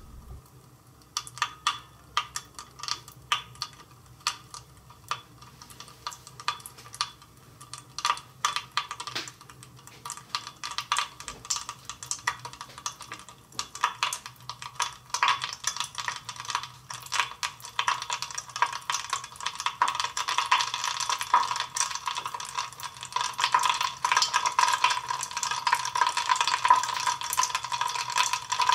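Tiny explosions of manganese heptoxide in a beaker of ethanol over sulfuric acid: sharp pops, scattered at first, building about halfway in into a dense, rapid crackle.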